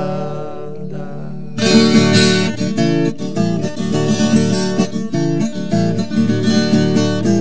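Instrumental break in a Brazilian moda sertaneja song: a held chord fades, then about one and a half seconds in acoustic guitars come in strumming and picking a lively run of notes.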